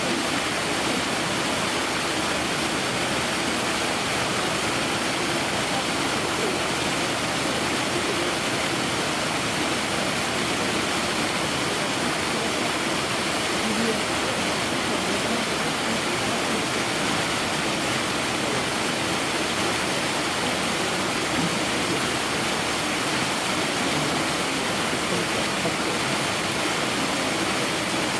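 A steady, even rush of running water, with a faint murmur of voices under it.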